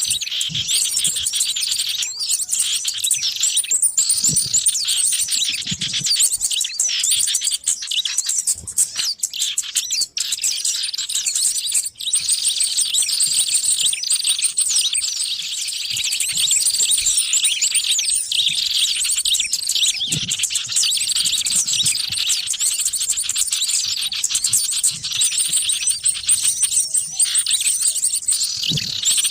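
A noisy chorus of many small birds chirping and twittering at once, calls overlapping without pause, high-pitched and busy: a lure recording for drawing in wild small birds.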